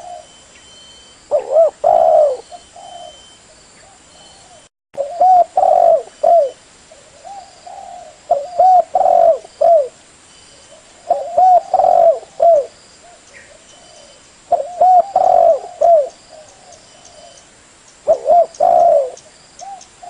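Caged derkuku (spotted doves) cooing, several birds calling in overlapping turns. Each phrase is a short run of looping coos, and a new phrase comes about every three seconds. Faint high chirps sound underneath.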